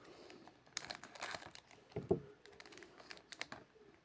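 Foil wrapper of an Upper Deck hockey card pack crinkling and tearing as it is opened by hand, in several short bursts.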